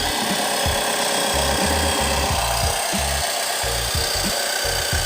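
Small portable electric air compressor switching on and running with a steady, loud buzzing rattle as it pumps air through an inflation needle into a ball. It runs off a power bank. A bass-heavy music track plays underneath.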